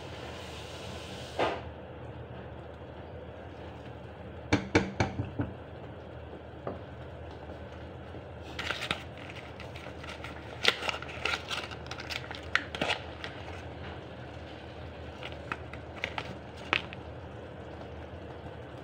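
A spatula clinks and scrapes against a frying pan in short clusters of sharp knocks, with quiet gaps between them, over a steady low background hum.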